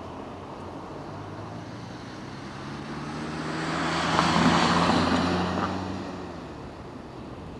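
Engine of a passing vehicle droning, growing louder to a peak about four to five seconds in, then fading away.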